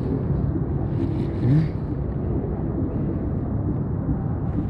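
Steady low outdoor rumble, with a brief faint voice about a second and a half in.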